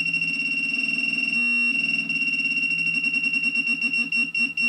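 Minelab Pro-Find 35 pinpointer alarming on a nearby coin: a high-pitched electronic tone over a fast buzzing pulse, which runs into one continuous tone for a moment about a second and a half in, then pulses again.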